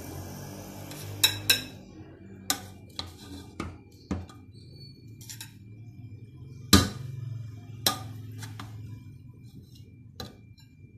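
Slotted metal serving spoon clinking and scraping against a metal cooking pot and a plate while biryani rice is dished out: about a dozen sharp, irregular clinks, the loudest about seven seconds in.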